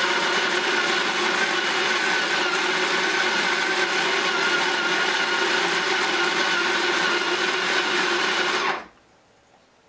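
Bodum electric burr grinder grinding coffee beans: a steady motor whine that holds one pitch throughout, then cuts off suddenly near the end.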